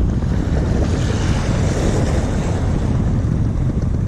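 Wind buffeting the microphone in a steady low rumble, over the wash of sea waves that swells about a second in.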